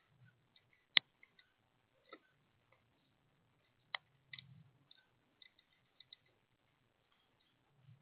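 Birds at a feeder: scattered sharp clicks and ticks of pecking and seed handling, with one loud click about a second in and another about four seconds in, followed by a quick run of small ticks.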